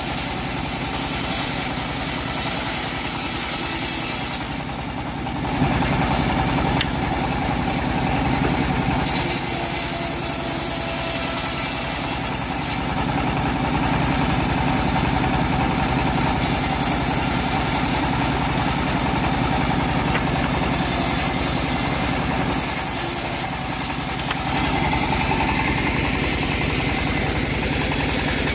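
Engine-driven homemade bandsaw mill running steadily while teak boards are sawn, with a high hiss that comes and goes over the engine drone. The sound drops briefly about five seconds in and again a little before the end.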